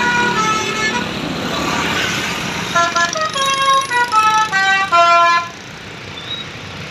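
A bus's Basuri telolet musical air horn playing a melody of short stepped notes: one run ends about a second in, and after a hissing gap a second run plays and cuts off sharply about five and a half seconds in.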